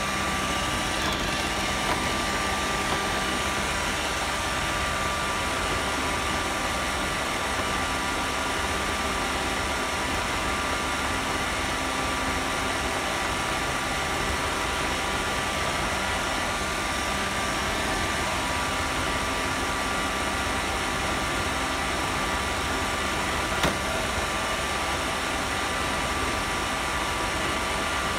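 Roomba robot vacuum running, heard from on top of it: a steady hum of its motors and suction fan with a constant whine. One sharp knock comes late on.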